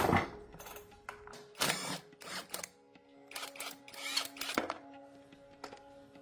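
Background music with steady held tones, overlaid by irregular short clattering and rustling noises.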